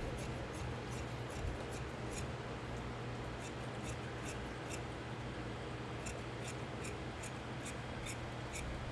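Large tailor's shears cutting pinstriped suit-trouser fabric along a marked line: a run of crisp snips, about three a second, pausing briefly twice. The cut trims away a trouser leg that is too wide.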